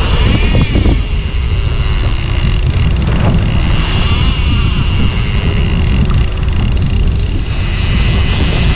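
Fishing boat under way: a steady low rumble of its engine mixed with wind and water noise, with a faint steady high whine running through it.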